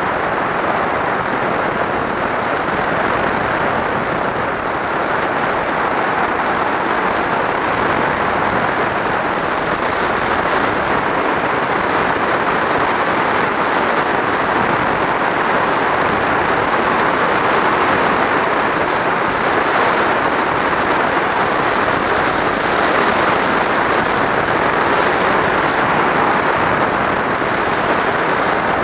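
Steady rush of wind over a helmet-mounted camera's microphone on a motorcycle riding at speed, with road noise blended in and no clear engine note.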